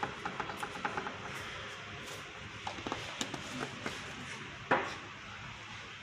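Plastic spoon clicking and scraping against a plastic bowl while soaked bread pieces and ghee are stirred: a quick run of small clicks in the first second, a few more partway through, and one louder knock late on.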